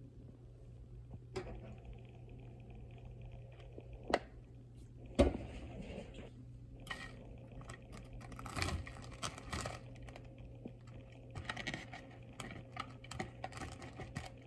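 A few sharp knocks in the first five seconds, then a plastic fork scraping and crunching through crispy panko-breaded hot dog pieces in a foam bowl, in two stretches of crackly scraping. A steady low hum runs underneath.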